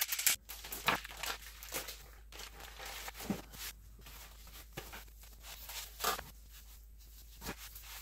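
Scattered rustles and soft thumps of a raw brisket being handled: its plastic vacuum-pack wrapping crinkling as it is pulled off, a paper towel dabbing the meat, and the heavy brisket being lifted and set down on a cutting board.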